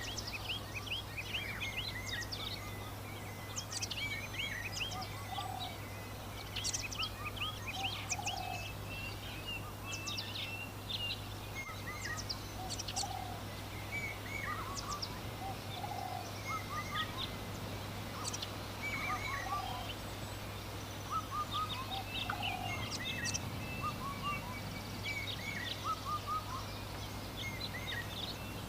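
Several birds chirping and calling over one another in short, quick notes. A lower call repeats every few seconds, over a steady low hum.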